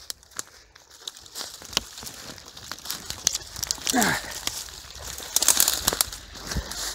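Walking and pushing through dense, dry undergrowth: leaves and twigs rustling, crackling and snapping underfoot and against the body, with the densest crackling a little past halfway. A short falling creak or squeak comes about four seconds in.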